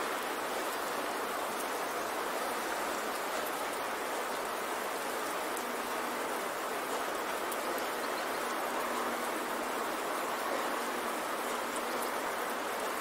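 Steady rain sound, an even hiss with faint scattered ticks of drops and no deep bass, running unchanged as the masking bed of a subliminal track.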